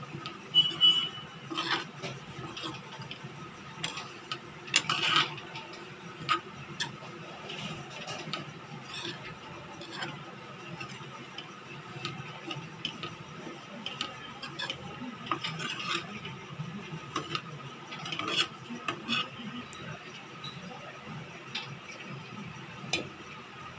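A metal spoon scraping and knocking against a stainless steel pan in irregular strokes while stirring grated coconut as it dry-roasts, over a faint steady hum.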